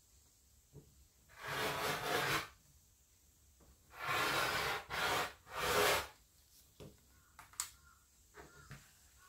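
Rotary cutter blade rolling through cotton fabric onto a self-healing cutting mat along an acrylic ruler: four rasping strokes of about a second or less each, followed by a few light clicks as the ruler is shifted.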